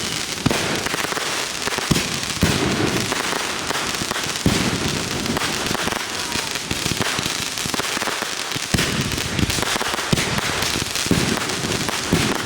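Fireworks going off in rapid succession: a dense, continuous crackle of firecrackers with loud booms every second or two from firework cakes and shells.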